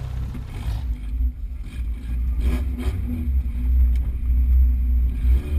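Suzuki Samurai's engine running under load as it climbs over rough off-road ground, a steady low drone heard from inside the cab.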